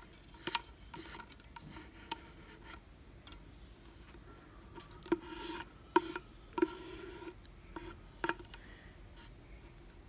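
A paintbrush scratching in short strokes over a plastic bottle, with a few sharp clicks from the bottle being handled.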